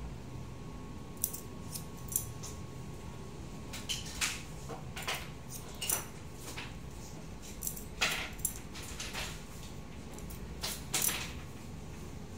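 Hair-cutting scissors snipping through damp hair, about a dozen short metallic snips at an irregular pace.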